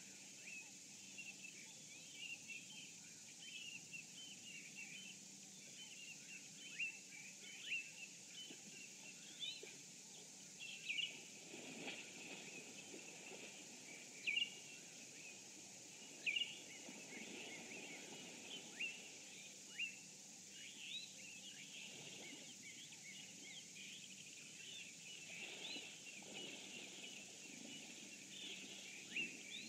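Many small birds chirping and calling over a steady high hiss, with a few soft washes of broad noise in between.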